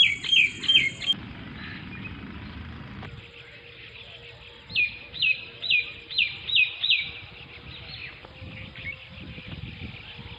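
A bird calling in series of sharp notes, each falling in pitch: four quick notes at the start, then a run of about seven from about five seconds in.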